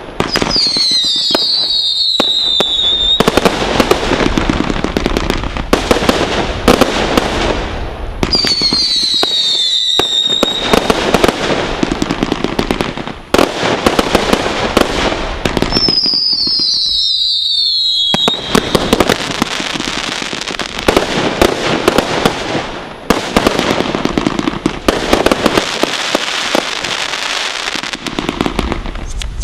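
Brothers Fireworks Airboss 500-gram combination Roman candle cake firing continuously, dense rapid pops and crackling bangs. A whistle falling in pitch sounds about a second in, another around eight seconds, and a third around sixteen seconds.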